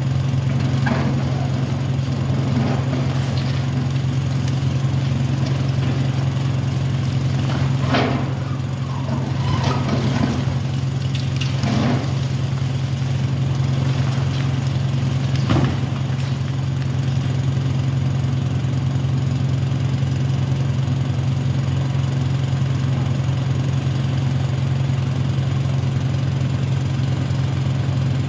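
Caterpillar high-reach demolition excavator running with a steady low engine drone, with several crunches as its jaw breaks concrete at the top of the tower block, the clearest about eight, ten, twelve and fifteen seconds in.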